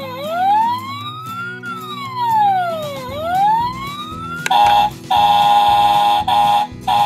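Toy fire truck's electronic siren wailing, its pitch sliding down and back up in slow cycles. About halfway through it gives way to a steady electronic ringing with a few short breaks.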